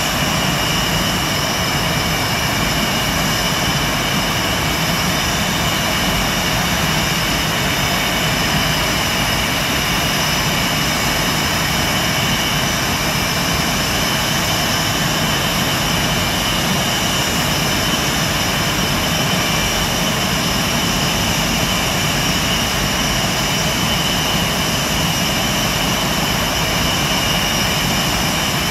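Blue Angels F/A-18 Hornet jet engines idling on the ramp before taxi: a steady rush of jet noise with a high whine made of several held tones, unchanging throughout.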